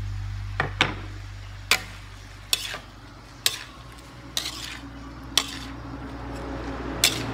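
Metal spatula stirring and tossing vegetables in a steel wok, with about eight sharp clanks of the spatula against the pan roughly a second apart over a light sizzle of frying.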